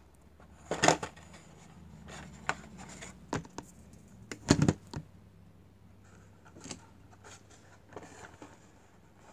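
Cardboard-backed plastic blister pack of a toy car being handled and turned over in the hands: a string of crinkling clicks and rubs, loudest about one second in and again around four and a half seconds.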